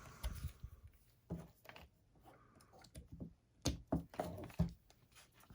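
Scattered knocks and taps from the soldering iron and its battery being handled and set down, with a few louder thuds about four seconds in.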